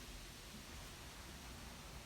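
Wind rustling tree leaves, a faint, steady hiss with a low rumble underneath.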